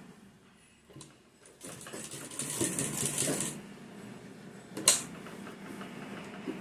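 Sewing machine stitching a seam in dress fabric: a burst of rapid stitching lasting about two seconds, then a quieter, steadier stretch, with one sharp click about five seconds in.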